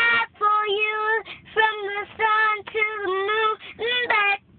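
A young girl singing unaccompanied, in short phrases of long held notes with brief breaks between them.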